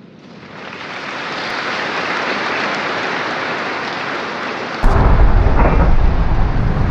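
Dramatic sound effects: a rushing, rain-like noise swells up over the first second and holds steady, then a sudden heavy boom hits about five seconds in and keeps rumbling.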